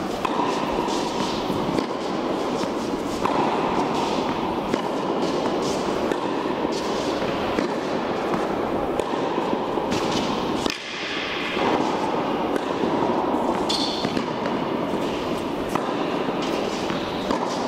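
Tennis ball hit back and forth with rackets in a rally, with a sharp strike or bounce about every second, echoing in a large indoor court hall over a steady background din.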